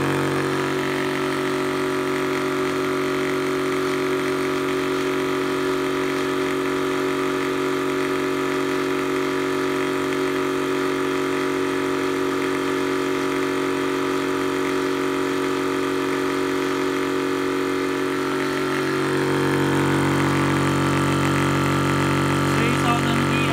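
Blue Zhongyan 4500 psi electric PCP high-pressure compressor running steadily with a constant hum as it pumps an 18 cubic inch tank up past 3000 psi. The sound grows a little louder and fuller near the end.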